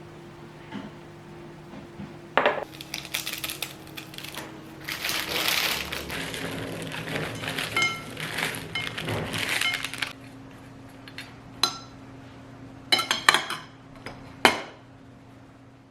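Dishes and utensils being handled: scattered clinks and knocks, a couple of them ringing briefly, with a stretch of rustling in the middle. A faint steady hum lies underneath.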